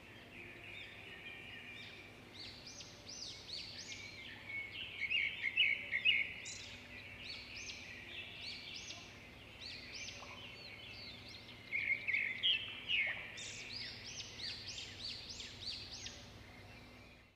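Small birds chirping and twittering in quick runs of short high notes, coming in bouts, with a quieter spell in the middle and a busier burst from about twelve seconds in.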